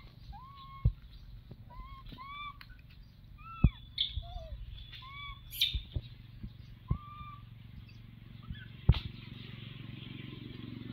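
A series of short, arched, whistle-like animal calls, about eight in the first seven seconds, each rising and then levelling or falling, with a few sharp taps in between, the loudest about three and a half and nine seconds in.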